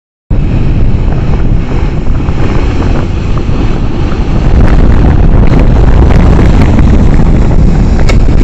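Strong wind buffeting a phone microphone on a moving ship's deck, over the rush of sea water along the hull. The noise starts a moment in and grows louder about halfway through.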